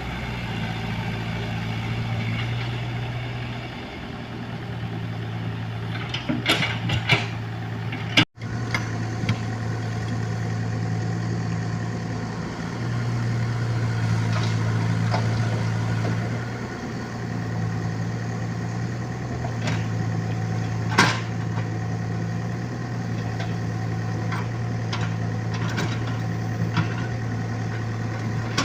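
Diesel engine of heavy construction machinery running steadily at a low hum, swelling and easing as the load changes, with a few sharp metal clanks.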